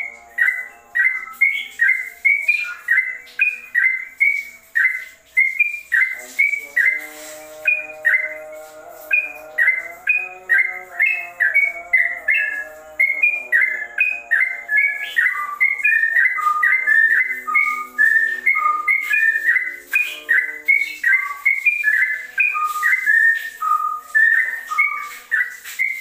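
Caged yellow-vented bulbul (trucukan) singing a rapid, unbroken run of short clear whistled notes, about two a second. The uploader likens this fast continuous song to a straw-headed bulbul's.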